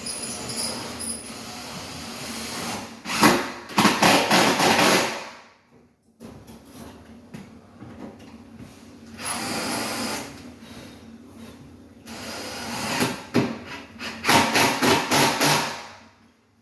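A handheld power tool running in two long bursts with a pause between, rattling and growing louder within each burst.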